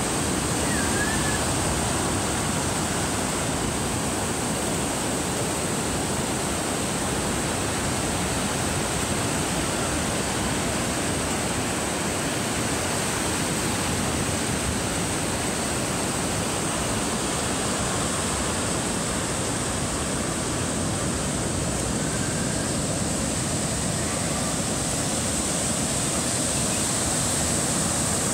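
Sea surf breaking and washing up a sandy beach: a steady rushing noise.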